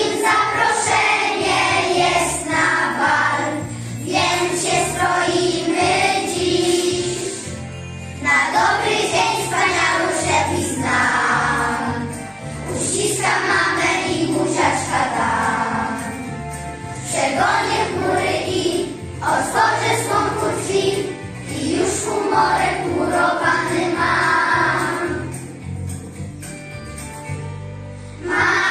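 A class of young children singing a song together over an instrumental accompaniment, in phrases of a few seconds with short breaks between them.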